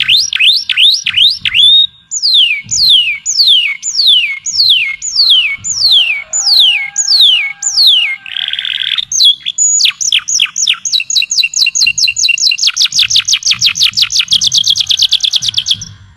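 Songbird singing: a run of clear whistled notes, each sweeping down in pitch, about two a second, then a short buzzy note, and from about ten seconds in a fast trill that speeds up and cuts off just before the end.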